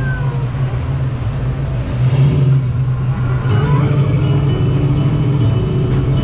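Radiator Springs Racers slot-car-style ride vehicle running along its track: a steady low hum and rumble that gets louder about two seconds in. Faint music starts to come in during the second half.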